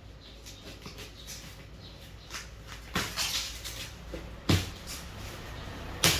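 Handling and unpacking noises: rustling of packaging with scattered clicks and three sharp knocks, about three seconds in, halfway through and near the end.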